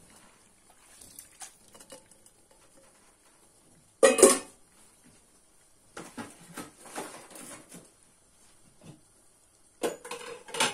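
Cooked eggplant cubes being tipped from a bowl into a large pan, with the bowl knocking against the pan: one loud clatter about four seconds in, softer knocks and scraping after, and another clatter near the end.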